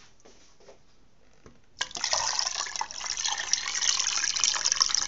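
Water pouring into a cooking pot around a sealed glass jar, filling the water bath for canning the compote. The rush starts suddenly about two seconds in and runs on steadily, after a few faint clicks.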